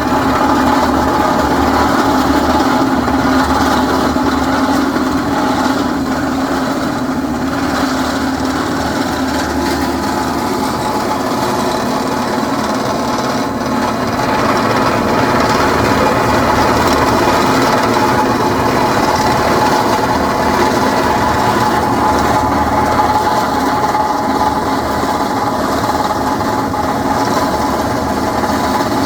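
Drilling rig boring through a reinforced-concrete foundation, its bit grinding through concrete and steel rebar: a steady mechanical drone under a continuous rasping grind.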